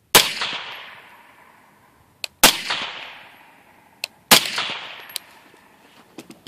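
Three suppressed 5.56 rifle shots from an AR-15 short-barrel rifle fitted with a titanium suppressor, about two seconds apart, each echoing away. A few faint clicks and knocks follow near the end as the rifle is handled.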